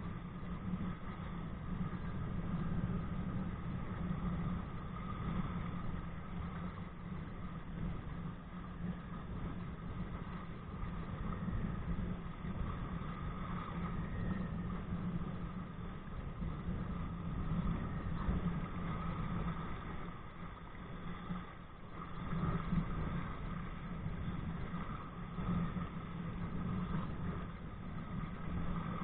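Steady rumbling wind noise on a body-worn camera's microphone, mixed with the rush of water along a kite-towed kayak.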